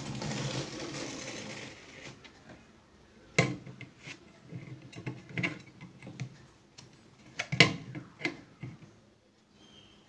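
Combination pliers tightening a nut on a bolt through a metal bracket on a plastic ice box. A rustling scrape for the first two seconds, then a handful of sharp clicks of the metal jaws on the nut.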